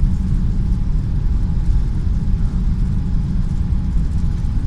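Steady low rumble inside a jet airliner's cabin during the takeoff roll: the engines and the wheels running down the runway.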